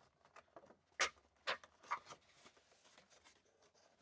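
Cardboard box with a clear plastic window being handled and its end flap pulled open: three sharp crackles and scrapes about a second in, the first the loudest, then faint rustling.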